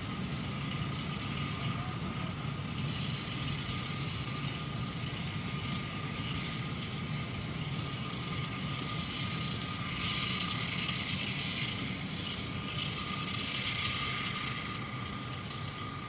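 Freight train of high-sided open wagons rolling past: a steady rumble with a hissing rush of wheels on rails and a thin steady high tone, heard from inside a car. The rush swells twice in the second half, and the train's tail passes near the end.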